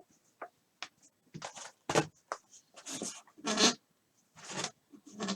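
Plastic wrap and foil packaging of a sealed baseball card box being torn and handled: a run of short, irregular crinkling and ripping bursts, a few of them longer.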